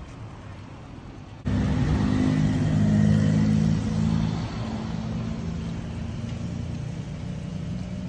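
Road traffic: a vehicle engine running nearby, a steady low hum that cuts in louder about a second and a half in, peaks around three seconds and then eases.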